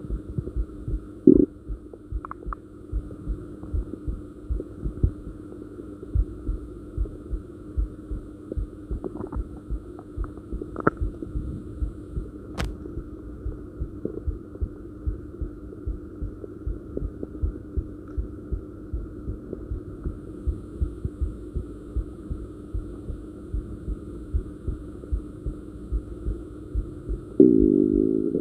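Human heartbeat heard through the body, steady low thumps a little faster than one a second, over a steady hum. A short stomach gurgle sounds about a second in and a longer stomach growl near the end.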